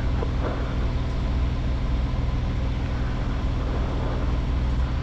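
Van's RV-10's piston engine and propeller idling with a steady low drone, heard through the cockpit intercom.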